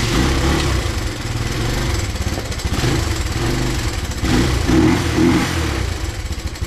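1993 Honda XR200R's single-cylinder four-stroke engine running just after a kick start, on choke. It gets louder twice, about three seconds in and again around four to five seconds, then settles into an even, pulsing idle. It still needs more choke and is running close to dying.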